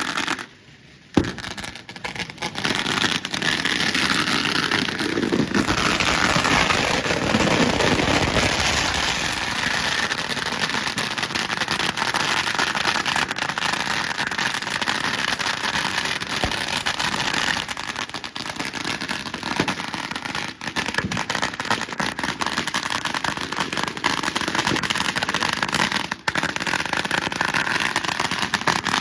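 Firecrackers going off in great numbers, a dense, continuous crackle of small bangs, with one sharp louder bang about a second in.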